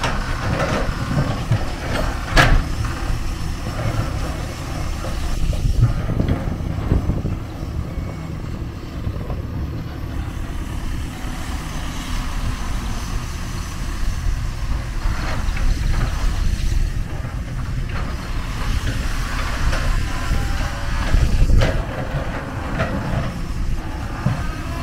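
Kobelco SK250 long-reach excavator's diesel engine running under load as the arm and bucket work, with a sharp knock about two seconds in.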